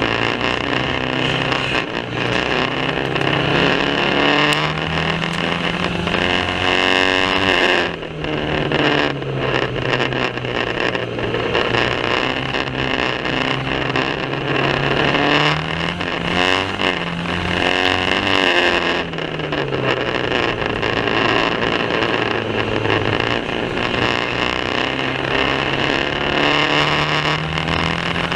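Banger racing car engine running hard at race pace, its pitch rising and falling again and again as it accelerates and lifts off. A heavy rumbling noise runs underneath.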